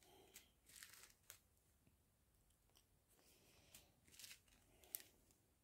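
Faint crinkling and rustling of small plastic bags of diamond-painting drills being handled, in two spells, with a sharp tick near the end.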